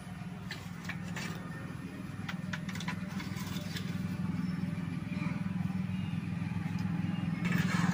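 Steady low rumble, slowly growing louder, under scattered light clicks and scrapes from a metal ladle stirring pomelo juice boiling down to jaggery in a kadai over a wood fire.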